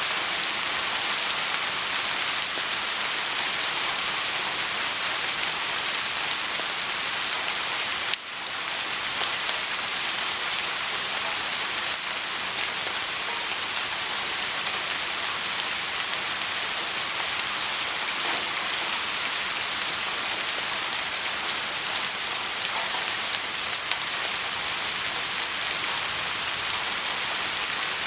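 Soft steady rainfall, an even hiss of rain on a surface. About eight seconds in the level briefly drops and swells back.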